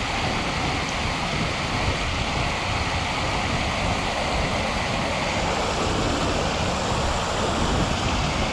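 Floodwater pouring over a broken concrete spillway, a steady, even rush of water with a low rumble.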